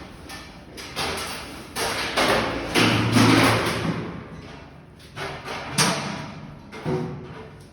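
Loud crashing and banging: a series of heavy thuds about a second apart, the loudest a longer crash about three seconds in.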